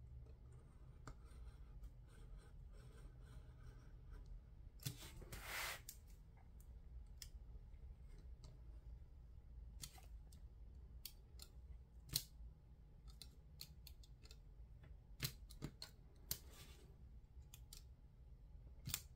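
Faint scratching and small clicks of a snap-off craft knife blade cutting through paper, with one longer scraping stroke about five seconds in and a few sharper ticks later.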